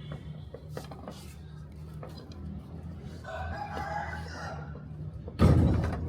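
A rooster crowing once, a call of about a second and a half starting about three seconds in, over a steady low hum. Near the end, a sudden loud thump is the loudest sound.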